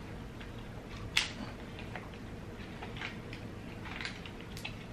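King crab leg shell cracking and snapping as it is pried open by hand to pick out the meat: a few sharp cracks and clicks, the loudest about a second in.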